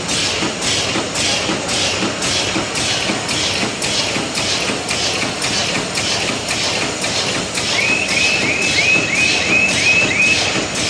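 Win 610 stand-up pouch bag-making machine running at 114 cycles per minute, its film draw and sealing stations beating out an even rhythm of strokes about two a second over a steady mechanical din. Near the end, a quick run of about eight short high chirps joins in.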